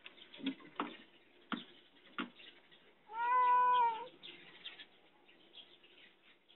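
A cat meows once: a single call of about a second, starting about three seconds in. A few light knocks come before it.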